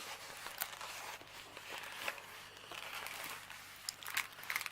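Plastic packaging rustling and crinkling as small kit items are handled, with a few light clicks.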